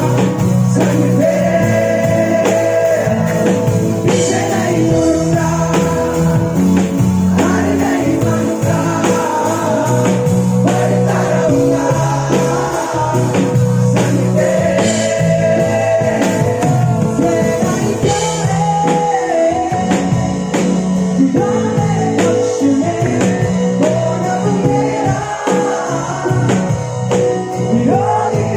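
Live band performing a Hindi Christian worship song: singing over guitar and bass with a steady beat.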